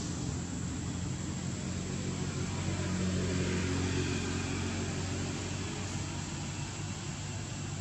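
Steady low mechanical hum, like a running motor, under a faint even hiss; it swells slightly about halfway through.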